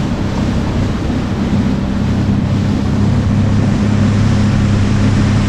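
A small fishing boat's engine running with a steady low hum, under wind on the microphone and the wash of water.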